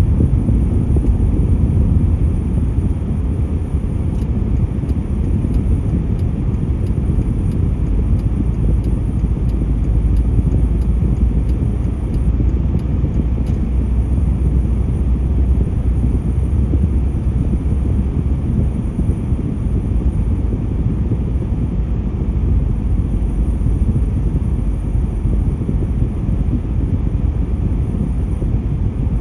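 Road noise inside a moving car: a steady low rumble of tyres and engine while driving on an expressway. Faint regular ticking sounds for a stretch in the first half.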